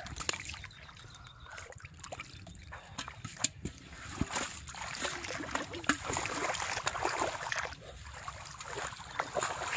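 Shallow muddy water splashing and sloshing as hands grope and scoop through it, with irregular sharp splashes and a few louder slaps.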